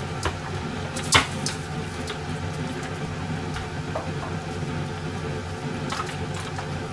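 A steady low hum from a kitchen appliance, with one sharp knock about a second in and a few light clicks and taps after it, as a container is put away in a cupboard.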